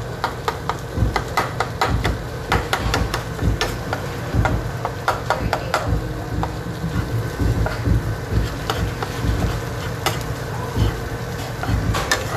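A metal spoon stirring and scraping browning ground meat crumbles in a nonstick frying pan. There are frequent clicks and taps of the spoon against the pan over a low steady rumble.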